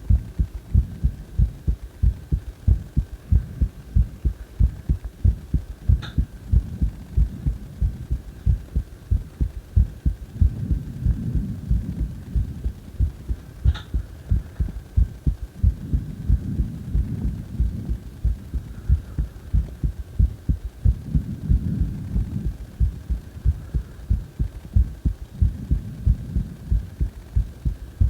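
A person's heartbeat: steady, regular low thumps at about three beats every two seconds, over a faint steady hum, with two faint clicks along the way.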